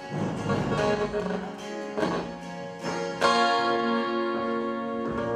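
Twelve-string acoustic guitar strummed in a few chords that are left to ring, the loudest strum about three seconds in.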